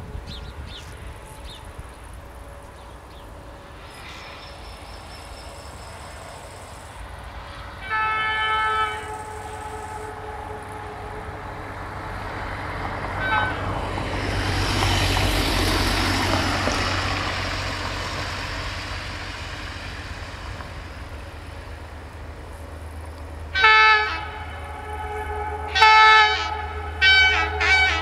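Horn of the approaching diesel locomotive 65-0950-9 sounding: one blast of about a second a third of the way in, a brief toot, then four short blasts in quick succession near the end, over a low engine rumble that grows as it nears. A broad rushing noise swells and fades in the middle.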